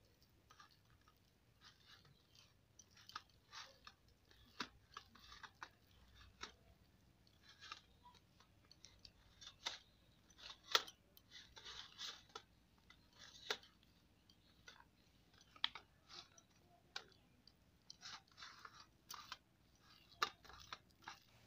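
Faint, irregular wet squelches and small clicks of a hand squeezing and mixing thick palm-fruit pulp batter in a steel bowl.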